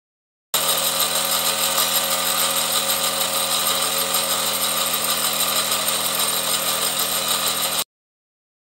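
Wilesco D405 'Old Smoky' toy steam traction engine running under steam: a fast, even beat over a strong hiss. It cuts in about half a second in and stops abruptly near the end.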